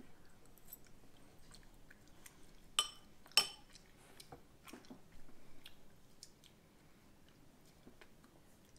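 A child quietly chewing a mouthful of shredded venison birria, with faint wet mouth sounds. A little under three seconds in, a metal fork clinks twice against the ceramic bowl as it is set down.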